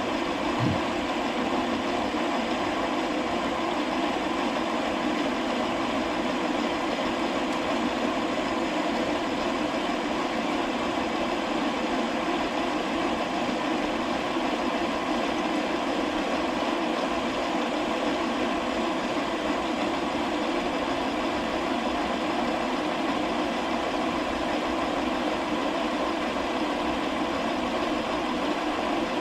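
Metal lathe running steadily under a turning cut, reducing the end of a T-nut blank to 0.750 inch diameter: an even, unbroken machine hum.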